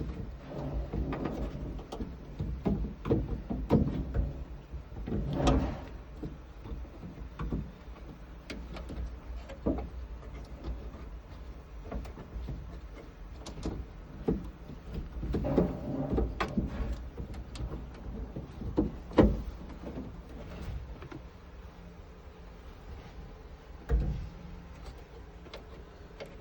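Irregular knocks, clicks and rattles of hands and tools working on a car door, with the sharpest knock about 19 seconds in.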